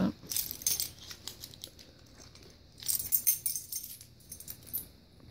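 Metal jingling of a dog's chain collar and harness hardware as the dog shifts and is handled, in two short bouts about half a second in and again about three seconds in.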